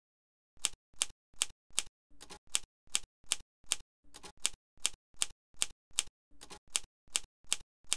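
Typewriter keys striking one after another at a steady pace, about two and a half a second, starting about half a second in. There is one stroke for each letter of a line of text being typed out.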